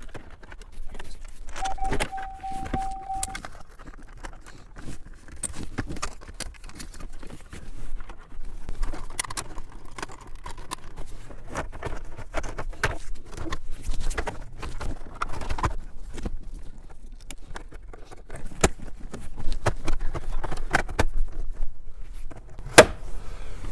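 Hard plastic dash trim bezel of a Chevy Trailblazer being handled and pressed back into place around a new double-DIN radio: scattered clicks, knocks and rattles, with a brief steady beep about two seconds in.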